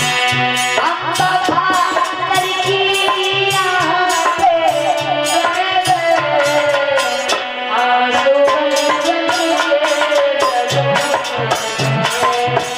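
Instrumental music: a steady tabla rhythm under a melodic lead line that slides and bends in pitch.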